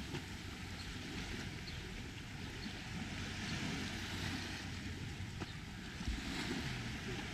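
Small waves washing onto a pebble beach in a steady hiss, with wind rumbling on the microphone.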